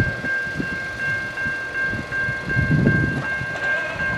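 Intermodal freight train with diesel locomotives approaching, a low uneven rumble, while a level-crossing bell rings steadily at a high pitch.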